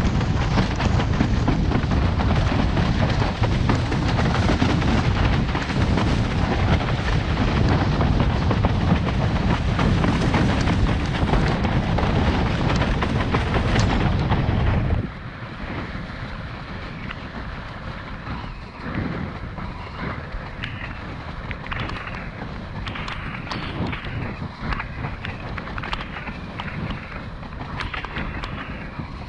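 Wind buffeting hard on the microphone over water rushing under a slalom windsurf board at speed. About halfway through the roar drops sharply to a quieter rush of water, broken by many short splashes of chop against the board.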